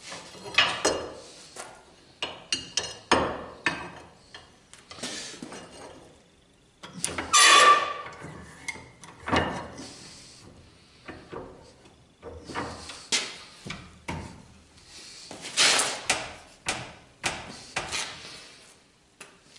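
Irregular metallic clanks and knocks from a bench vise as a leaf-spring slapper is set in its jaws and the vise's sliding handle is turned to clamp it. The loudest clank comes about seven seconds in, with a brief ring, and another comes near sixteen seconds.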